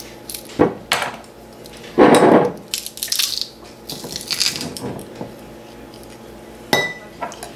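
Garlic clove being crushed in a metal garlic press over a glass mason jar: a few clicks as the press is handled, then a loud crunch about two seconds in as the clove is squeezed. Near the end there is a short ringing clink on the glass.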